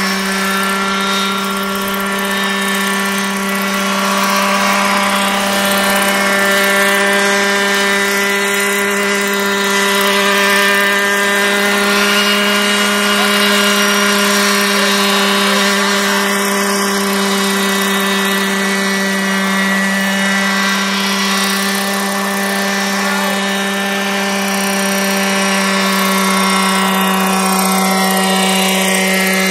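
Scale radio-controlled Robinson R22 model helicopter hovering and flying, its rotor and drivetrain making a loud, steady pitched drone. Near the end the higher tones slide down in pitch.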